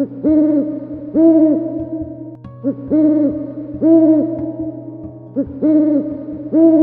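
Owl hooting over and over: rounded hoots that rise and fall in pitch, roughly one every second and a half, some led by a shorter hoot, over a steady low hum.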